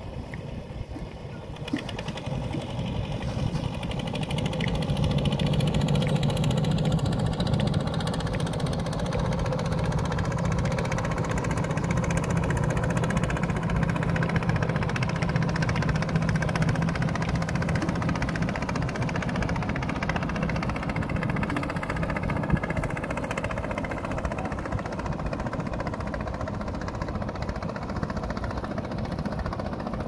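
Boat engine running: a steady low drone that swells over the first few seconds and then slowly eases off.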